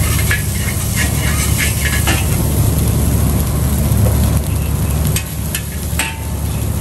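Rice frying and sizzling in a wok, with a metal spatula scraping and clanking against the pan in quick strokes for the first couple of seconds, then a few scattered clinks. A steady low rumble runs underneath.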